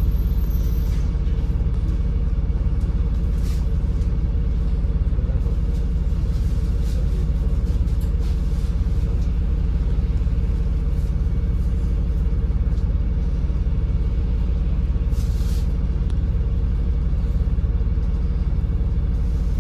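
Steady low rumble of a MAZ-203 city bus under way, heard inside the passenger cabin: engine and road noise, with a couple of brief hisses.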